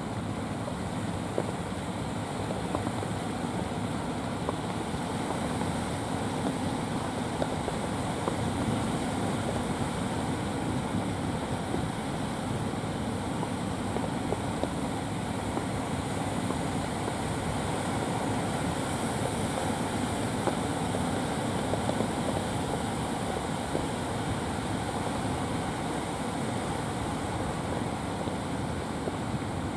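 Steady rush of sea surf and wind on the microphone, mixed with the running engines of motorised outrigger fishing boats coming in toward shore.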